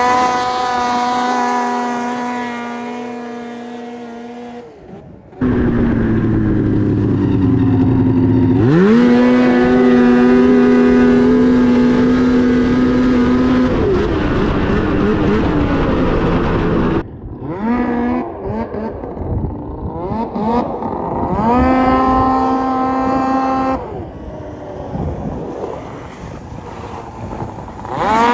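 700 snowmobile engine revving hard and holding high revs several times over, each time climbing quickly in pitch and then running flat out. Between runs it drops back to a lower, falling pitch.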